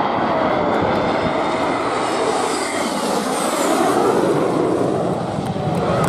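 Dassault-Dornier Alpha Jet's twin Larzac turbofans running hard in a display flypast, a steady loud jet rush with a high whine that slides down in pitch about halfway through as the aircraft pulls away.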